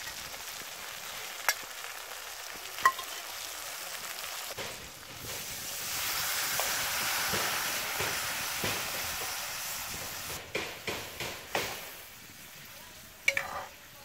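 Fish frying in spice paste in an aluminium karahi, sizzling steadily, with a steel ladle clinking against the pan. About five seconds in, water poured from a clay jug hits the hot oil and the sizzle swells for several seconds. Near the end come a quick run of ladle knocks and one sharp clank.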